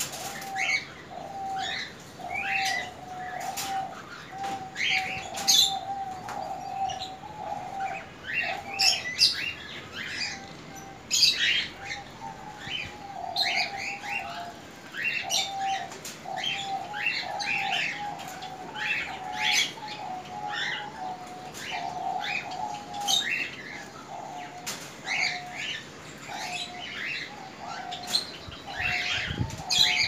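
Many caged aviary birds chirping and calling. Short high chirps come thick and irregular over a lower call that repeats steadily underneath.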